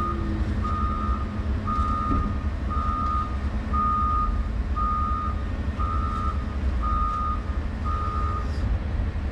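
A reversing alarm beeping steadily, one beep of about half a second every second, over the steady low running of an excavator's diesel engine heard from inside the cab. The beeping stops near the end.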